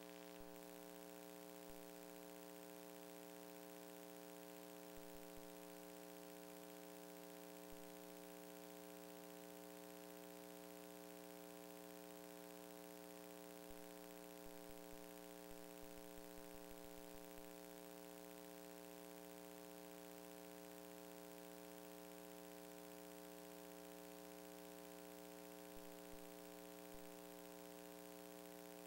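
Near silence: a faint steady hum with hiss, broken by a few faint ticks around the middle.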